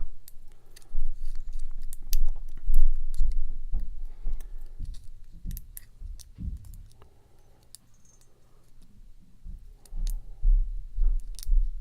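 Light metallic clicks and ticks of a hook pick working the pins of a pin-tumbler lock held under a tension wrench. Mixed in are low dull thuds of the lock and tools being handled close to the microphone, loudest about a second in and again near the end.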